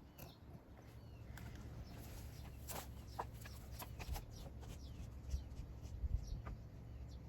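Irregular light clicks and scuffs over a low rumble: footsteps and the scraping of a heavy, full backpack sprayer tank being hauled along the ground.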